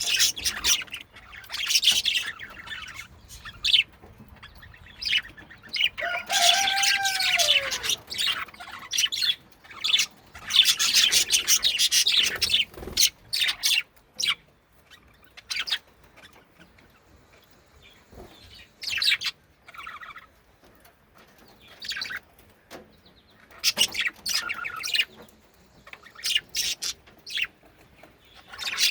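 Budgies chirping and chattering in bursts of a second or two, with quieter gaps between.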